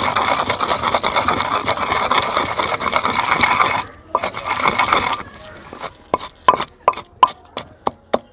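A pestle grinding onion and chilli chutney round a stone mortar, a continuous rasping scrape. After a short break it pounds the paste instead, sharp knocks about three a second.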